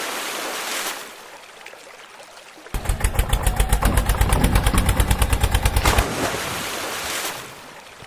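A rapid, regular rattle of about eight pulses a second, starting about three seconds in and stopping abruptly about three seconds later, between stretches of hiss.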